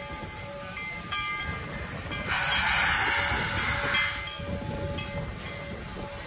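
Steam locomotive moving slowly, with a low rumble. About two seconds in, a loud hiss of escaping steam lasts roughly two seconds.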